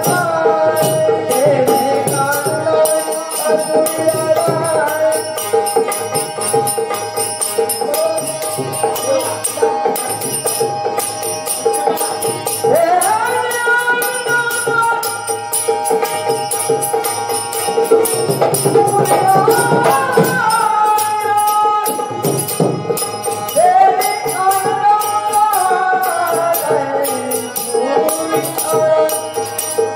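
Marathi gavlan devotional folk song: a voice singing long gliding phrases over a steady held drone, with jingling rattle-type percussion keeping a constant beat.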